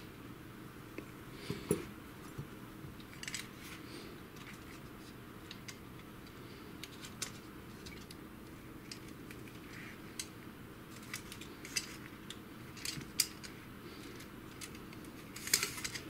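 Scattered light clicks and clatter of the HP Smart Tank printer's plastic print carriage and metal bracket being handled and turned over on the chassis rail, with a louder cluster of clicks near the end, over a faint steady hum.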